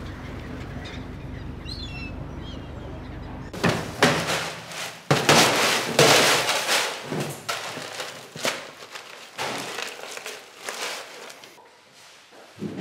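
A low steady rumble with a few short gull calls. About three and a half seconds in, this gives way to a run of loud thumps, knocks and clatter as fish and boxes are handled on a processing line, easing off near the end.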